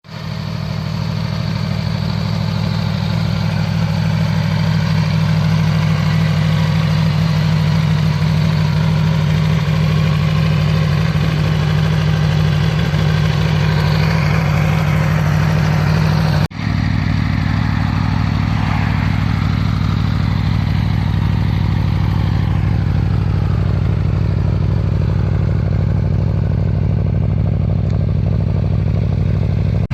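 Aprilia Tuono V4 motorcycle engine idling steadily through its exhaust. A little past halfway the sound cuts abruptly to a second idling recording with a lower, deeper note, a different exhaust setup in an exhaust comparison.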